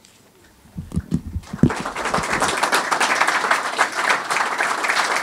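Audience applauding, beginning about a second and a half in after a few soft thumps, and holding steady.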